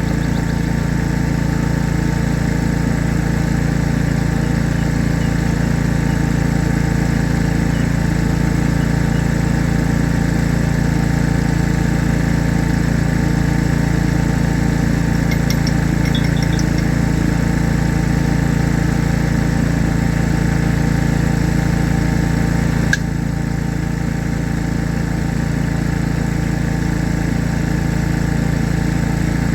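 An engine running at a steady speed, with a fast even pulse, dipping slightly in level about 23 seconds in.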